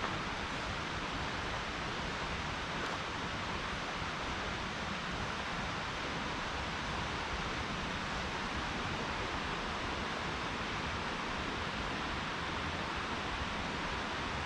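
Mountain river rushing steadily: a constant, even hiss of flowing water.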